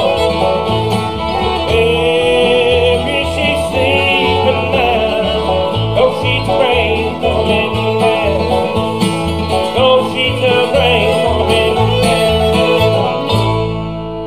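Bluegrass band playing the instrumental close of a song: fiddle, banjo, acoustic guitar and bass guitar together. Near the end the band lands on a final chord that rings out and fades.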